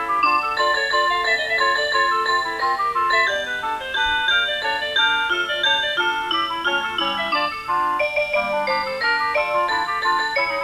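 Electronic melody played in plain, chime-like tones, with several notes sounding together in a quick-moving tune.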